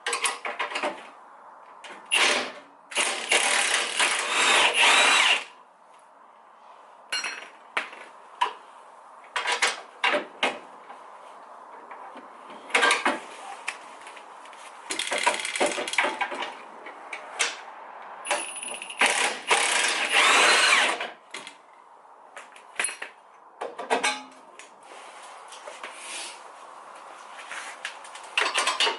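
Cordless power tool run in several bursts of a second or two, its motor spinning up and down, backing out the 19 mm bolts that hold a car's lower radiator support. Sharp metallic clicks and clinks come between the bursts.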